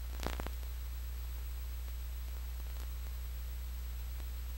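Steady electrical hum and hiss with no other sound, and a few faint clicks about a quarter of a second in.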